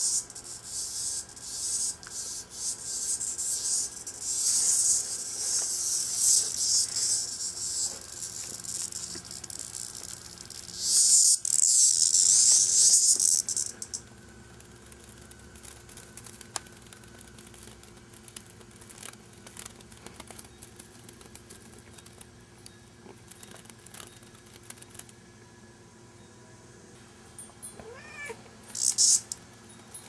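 A cicada, caught and batted about by a cat, buzzes in harsh, high bursts on and off, loudest for about three seconds from roughly eleven seconds in, then falls silent apart from light taps. Near the end a short rising cry is heard, followed by one more brief buzz.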